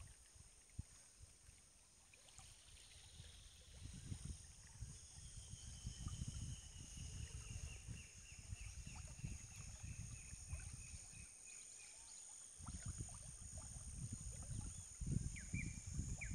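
Riverside ambience: a bird gives a long series of short notes slowly falling in pitch through the middle, then repeated short calls near the end, over a steady high insect drone. Low rumbling gusts of wind on the microphone come and go, loudest near the end.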